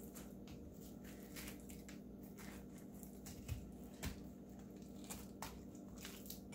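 Fingers pulling stringy pulp and seeds out of a halved calabaza de maíz squash: faint wet squishing and tearing with scattered small clicks, over a steady low hum.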